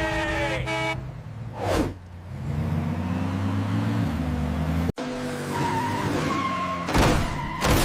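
Cartoon car sound effects over background music: a whoosh, then a car engine revving up with rising pitch that cuts off abruptly, followed by two more whooshes near the end.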